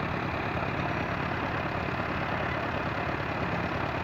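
Small skid-mounted core drilling rig running steadily, its engine driving the drill rod fitted with a wing bit; an even, unbroken engine hum with a low drone under it.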